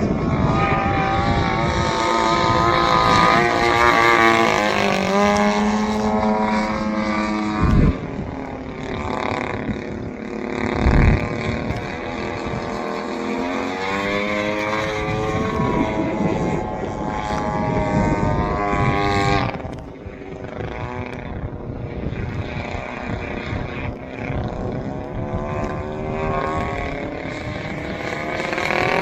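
Engine of a radio-controlled Sbach 342 aerobatic model plane in flight, its pitch rising and falling repeatedly as it passes and changes throttle. Two brief low thumps stand out in the first half.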